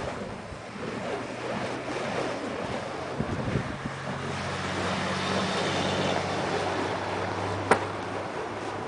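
Wind noise on the microphone over road traffic, with a vehicle engine hum that builds from about three seconds in and fades near the end. A single sharp click comes shortly before the end.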